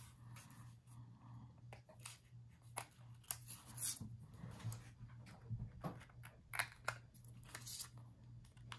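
Small craft scissors making faint, irregular snips as they trim chipboard and paper, with light rustling of the paper being handled.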